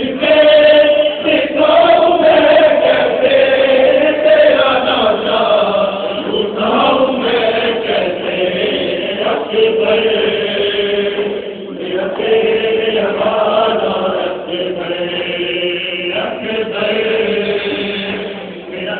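A group of Shia mourners chanting together in a Muharram mourning chant, with long held notes.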